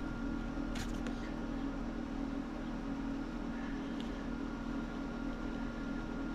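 A steady low machine hum in the background, with a couple of light metal clicks about a second in and about four seconds in as the anchor's greased roll-bar bolts are fitted.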